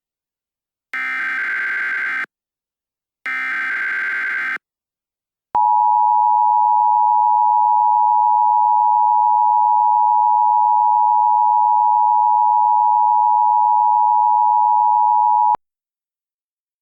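Emergency Alert System SAME header: the digital data bursts, the last two of the three repeats about a second apart, screech and stop. Then the EAS two-tone attention signal sounds steadily for about ten seconds and cuts off abruptly.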